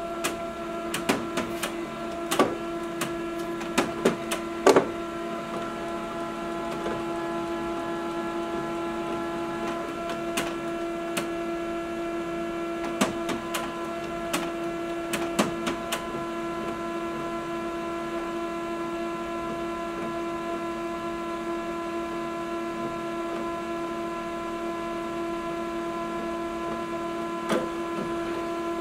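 HP Color LaserJet M183fw colour laser printer running its first start-up cycle after power-on: a steady mechanical hum with a rapid series of sharp clicks and clunks through the first fifteen seconds or so, then the hum runs on with just an occasional click.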